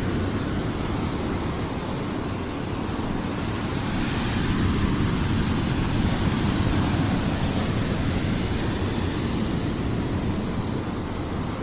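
Sea surf washing steadily with wind on the microphone, swelling a little in the middle.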